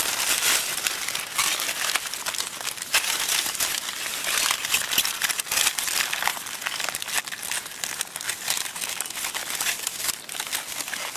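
Aluminium foil crumpled and scrunched by hand as it is wrapped tightly around orange halves: a continuous crinkling full of sharp little crackles.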